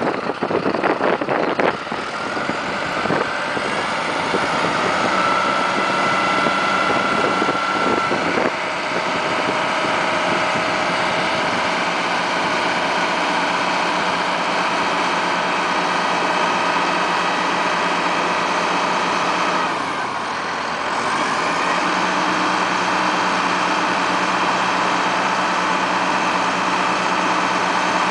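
Caterpillar RT80 telescopic forklift running steadily while its boom is raised, with a thin high whine for a few seconds early on. The engine note dips briefly about twenty seconds in, then rises again.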